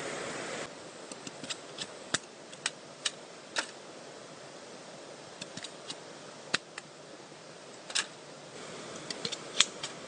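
Sharp, irregular clacks and knocks of a machete cutting bamboo and of bamboo pieces striking each other, about a dozen strikes with the loudest near the end. A steady rushing noise cuts off about half a second in.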